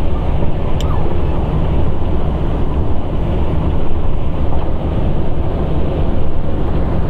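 Steady in-cab noise of a vehicle driving on an unpaved dirt road: tyres on the rough dirt surface and the engine running.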